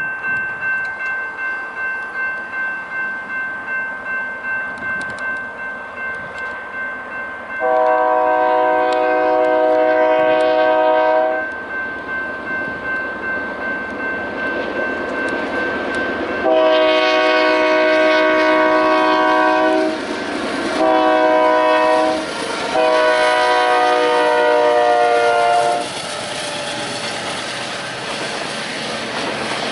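A grade crossing warning bell rings steadily, about three strokes a second. About eight seconds in, a Union Pacific freight locomotive's air horn sounds the grade-crossing signal, long, long, short, long, and the passing train's rumble grows near the end.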